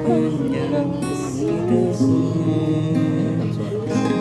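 Acoustic guitar played by hand, strummed chords changing every second or so.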